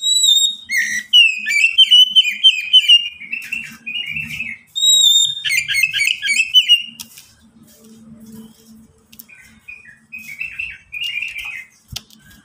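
Oriental magpie-robin singing. Each phrase opens with a clear, high whistle and runs into a rapid string of varied, chattering notes. Two loud phrases are followed by softer, shorter phrases from about nine seconds in.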